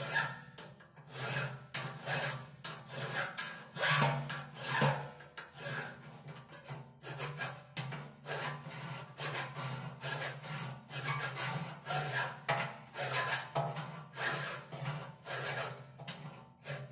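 Flat hand file rasping on a welded steel corner in repeated back-and-forth strokes, cutting the lumpy weld in the ash pan cavity corner square.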